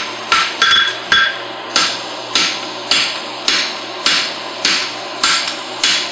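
Hand hammer striking a red-hot steel horseshoe bar on an anvil in steady blows about twice a second, some blows leaving a short metallic ring. The blows upset (bump) the bar's heel end to build up material for the heel.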